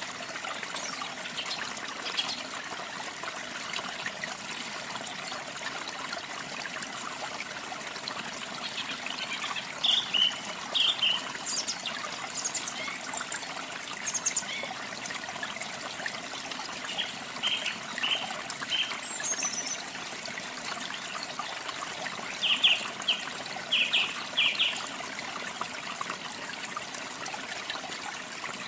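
Steady trickle of running water, with small birds chirping over it in short runs of a few notes, about ten seconds in, again past the middle and most loudly near the end.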